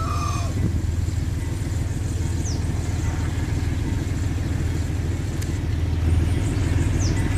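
Diesel-electric freight locomotive engine running with a steady low rumble as the train approaches.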